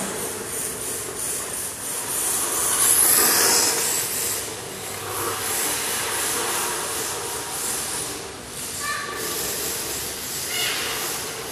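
Radio-controlled drift car sliding around an indoor track: a steady hiss of its hard tyres skidding on the smooth concrete floor, loudest about three seconds in. Its motor gives brief whines near the end.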